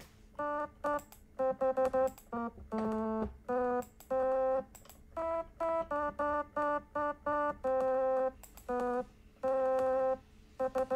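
Synthesizer notes from BeSpoke Synth's oscillator, played from a MIDI keyboard: a run of short notes in an uneven rhythm, with a few held longer, at a few different pitches.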